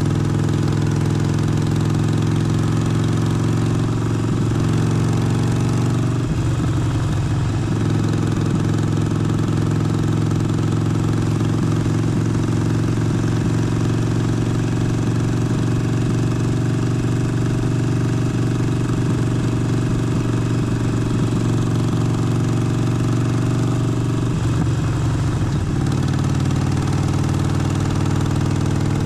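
Harley-Davidson Forty-Eight's air-cooled 1200 cc V-twin running steadily, its engine note changing briefly twice, about six seconds in and again near the end.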